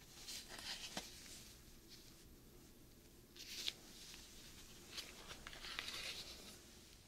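Faint handling of trading cards in gloved hands: a few soft swishes and small clicks as the cards are slid through one by one. Near the end the stack is set down on a cutting mat.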